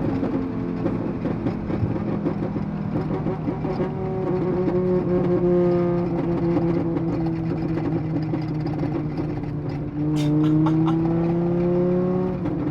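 Tuned VW Golf Mk6 2.5-litre five-cylinder engine running under load while driving, a steady drone; about ten seconds in it gets louder and its pitch climbs slowly as the car pulls harder.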